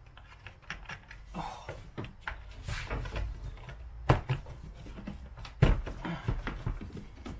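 Plastic engine cover of a Ford Focus 1.6 diesel being tugged off its stiff rubber mounts: rustling and scraping with a string of knocks, the sharpest about four seconds in and just before six seconds.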